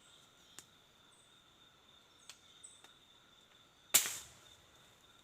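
A single sharp shot from a bird-hunting rifle about four seconds in, the crack dying away within half a second, over a faint steady high-pitched tone.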